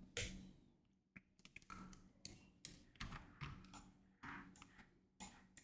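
Faint, irregular clicks of a computer keyboard and mouse, roughly one every half second, over near silence.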